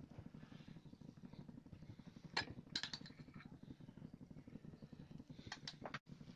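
Gas stove burner at full flame giving a low, steady rumble under the griddle while a dosa cooks. A few light clicks come about two seconds in and again near the end as a steel spoon works over the griddle.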